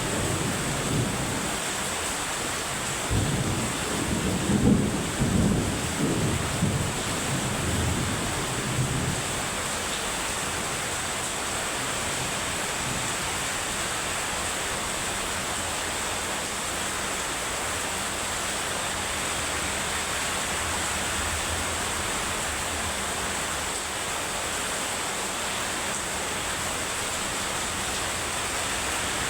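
Heavy rain falling steadily, with a low rumble of thunder in the first several seconds that dies away about nine seconds in.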